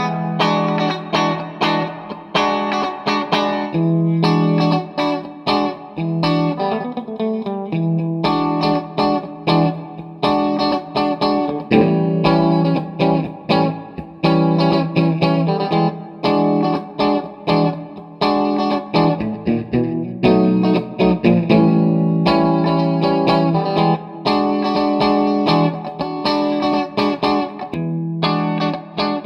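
Fender Stratocaster electric guitar played through a Blackstar HT5 valve amp and 1x12 cabinet, picked in repeating chord-and-note phrases with a light effect on the tone and a bent note about two-thirds of the way through.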